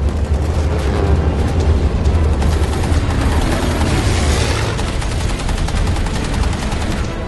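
Rapid machine-gun fire from an aerial battle between B-17 bombers and fighter planes, over the heavy steady drone of bomber engines. A rushing noise swells around the middle.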